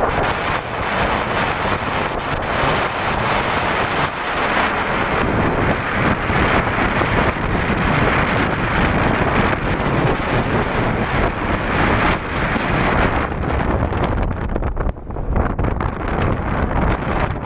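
Wind buffeting the microphone over the steady rumble of a vehicle moving through street traffic. The rush eases briefly about fifteen seconds in.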